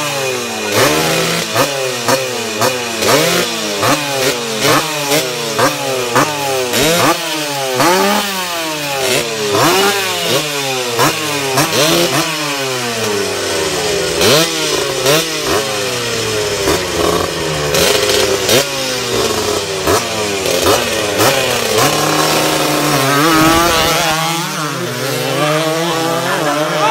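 Racing motorcycle engines being revved hard at the start line, the throttle blipped over and over about once a second, each rev rising and falling in pitch. Near the end the revving gives way to one steadier rising engine note as a bike launches and accelerates away.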